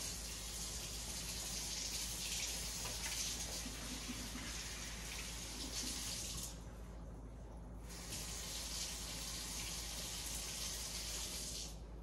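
Kitchen faucet running into a sink as hands are rinsed under the stream. The steady hiss drops away briefly a little past halfway, then comes back.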